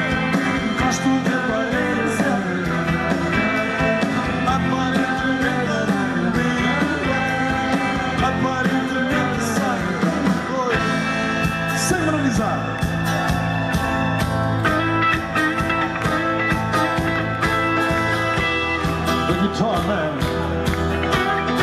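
Rock band playing live through a PA: a man singing lead over electric and acoustic guitars, keyboards and drums.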